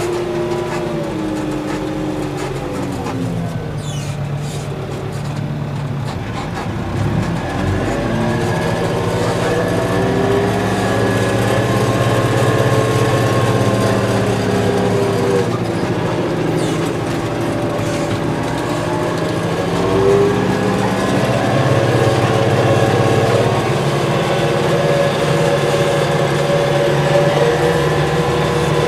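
TNF 95 vineyard tractor's diesel engine running under load, driving a towed Martignani air-blast sprayer during a spraying pass. The engine note falls over the first few seconds, climbs back, dips again about halfway through and then holds steady.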